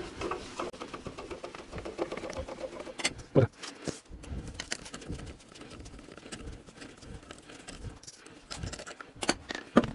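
Scissor jack being cranked by hand with its bent rod handle, a busy run of small metallic clicks and rattles as it raises the car, with a short falling creak about three seconds in. Then a lug wrench turning an already-loosened wheel nut off, with a few louder metal clinks near the end.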